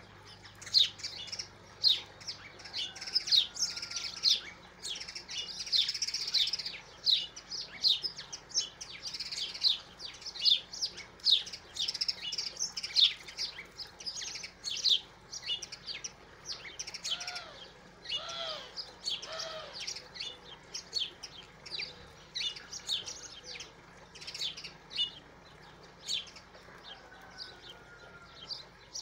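Small birds chirping rapidly and continually: a dense run of short, sharp, high chirps, with a few lower arching call notes a little past the middle.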